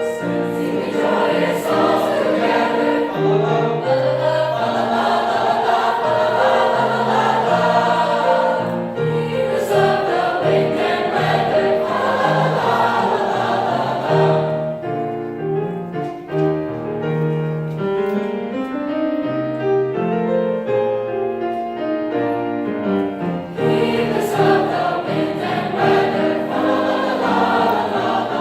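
High school choir singing a choral piece in parts. About halfway through, the sound thins to quieter, clearer held notes for several seconds before the full choir comes back in.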